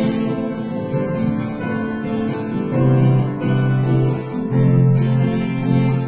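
Acoustic guitar strummed with piano accompaniment, an instrumental break between verses of a slow gospel song, with no singing.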